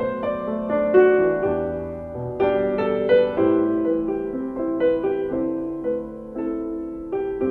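Background piano music, slow and gentle, single notes and chords sounding one after another and left to ring.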